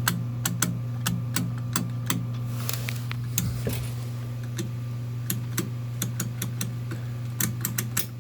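Irregular sharp clicks, a few a second, over a steady low hum: a refrigerator's defrost timer being turned by hand to advance it out of the defrost cycle.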